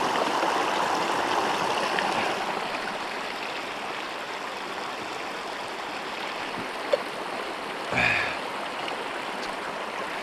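Small snowmelt stream splashing and running over mossy rocks, louder for the first two seconds or so, then a little quieter and steady. A sharp click about seven seconds in and a brief short sound a second later.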